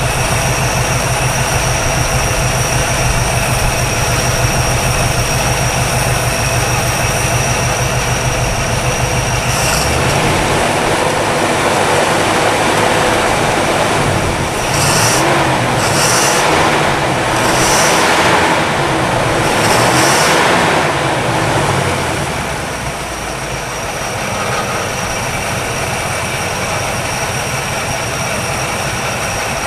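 1962 Chevrolet engine running warm and smooth with a quiet valve train. Its speed rises and falls several times in the middle, then it settles back to a steady idle.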